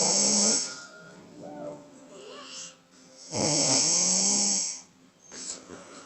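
A person snoring loudly. One long rasping snore ends about half a second in, and another lasts about a second and a half in the middle, with softer wheezy breathing between them.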